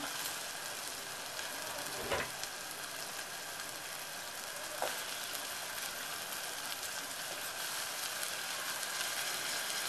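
Chopped onion and tomato sizzling steadily in hot oil in an aluminium pot, with a knock about two seconds in and a fainter tick near five seconds as potato slices are dropped in.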